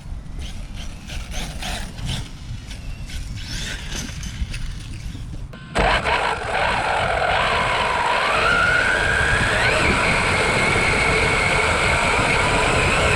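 Wind rumble on the microphone at first. About halfway through it cuts suddenly to a louder high-pitched electric motor whine from radio-controlled models, which rises in pitch and then holds steady.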